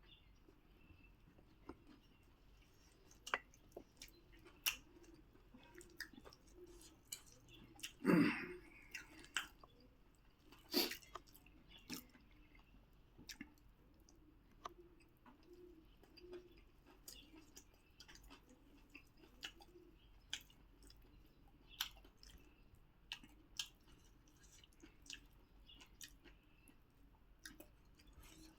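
Close-up chewing and mouth sounds of someone eating puri with pickle and vegetable curry: soft wet smacks and small clicks, with a louder smack about eight seconds in and another about eleven seconds in.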